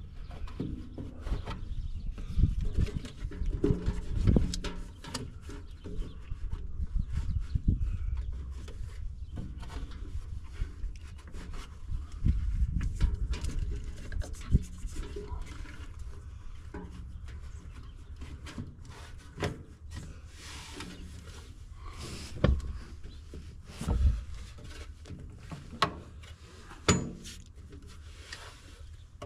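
Irregular knocks, clunks and rubbing as a tractor's metal dash panel is handled and worked into place on the steering column, with a few sharper single knocks near the end.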